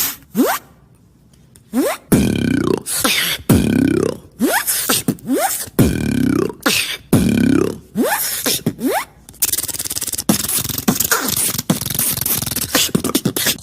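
Beatboxing: a repeating pattern of vocal bass drops, each falling sharply in pitch, mixed with clicks, then from about two-thirds of the way in a rapid buzzing, crackling run.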